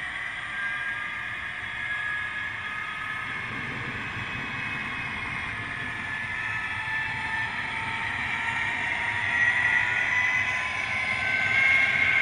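00 gauge model trains running on the track, a red Class 66 diesel model followed by a long rake of coaches: a steady whine from the electric motors, drifting a little in pitch, over the rumble of wheels on rail. It grows louder toward the end as the trains come close.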